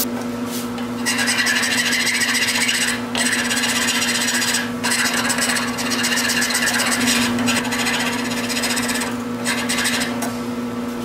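A flat metal file rasping across the end of a wooden axe handle held in a vise, in long two-handed strokes with brief pauses between them. A steady low hum runs underneath.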